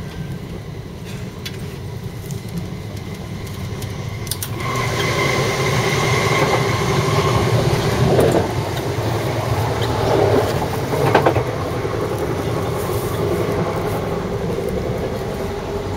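Cabin noise of a moving Southeastern electric passenger train: a steady running rumble from the wheels and motors. It grows clearly louder about four and a half seconds in, when a faint high hum comes in.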